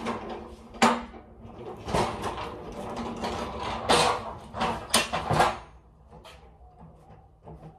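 Irregular clattering and banging of freight handling at a loading dock, with a run of sharp bangs about halfway through before it quiets down near the end.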